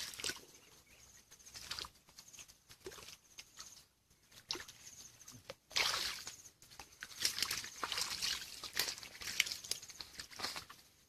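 Hands splashing and sloshing through shallow, muddy stream water in irregular bursts, with the biggest splash about six seconds in and a run of smaller ones after it.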